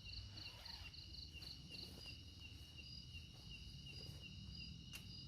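Forest insects chirping steadily: a high, even chirp repeating about three times a second over a continuous high buzz. A second insect pulses faster for the first two seconds, with a faint low rumble underneath and a single click near the end.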